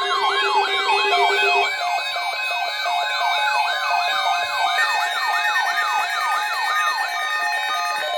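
Electronic siren yelping in quick sweeps, about three a second, layered over steady electronic tones. A lower steady tone drops out a couple of seconds in.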